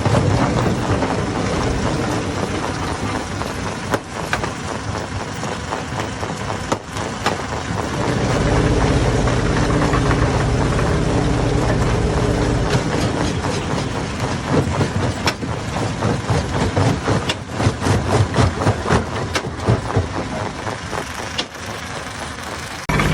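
A hammer-type stone crusher runs under load with a heavy, steady rumble as rocks go through it. In the second half there are dense, irregular knocks and clatters of stone being smashed.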